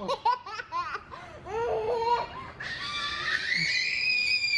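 A baby giggling in quick short bursts, then letting out one long, very high-pitched squeal that rises slightly and holds for a couple of seconds.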